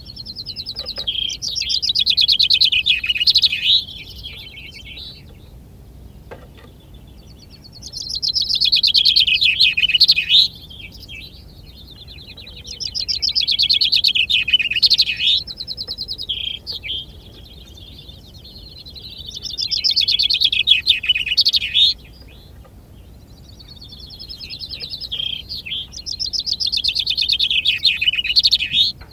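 A male chaffinch in a finch-singing contest repeats its full song five times, one phrase of about two to three seconds every five to six seconds. Each phrase is a quick run of repeated high notes ending in a short flourish, and each counts as one song toward the bird's tally.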